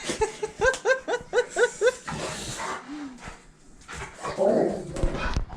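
Rottweiler giving a quick run of about seven short, high whining yelps in the first two seconds, then scuffling, with a louder rustling stretch near the end. The dog is agitated by a plastic container that he hates.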